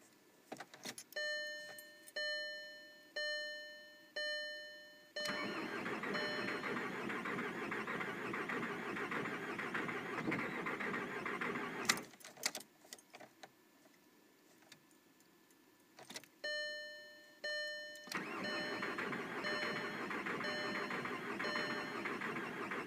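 Dashboard warning chime dinging about once a second, then the starter cranking the 2003 VW Golf's 1.9 TDI diesel for about seven seconds without it catching. A few clicks and a quiet pause follow, then more chimes and a second long crank that also doesn't fire: a crank-but-no-start fault.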